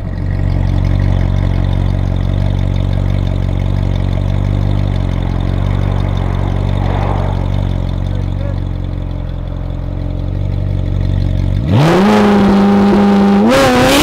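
Ferrari 458 Italia's flat-plane V8 with a Kline Innovation aftermarket exhaust idling steadily. About two seconds from the end the engine is revved sharply, holds briefly at high revs, then climbs again.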